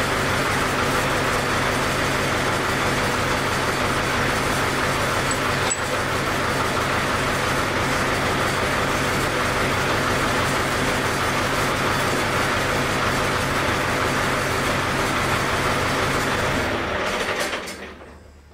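A steady mechanical drone, like a motor running, holding even and then dying away smoothly near the end.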